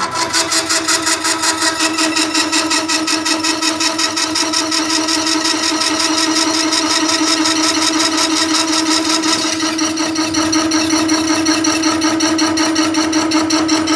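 Special-purpose double cutter and drill machine running under its electric motors: a steady, loud hum with a fast, even mechanical pulsing over it.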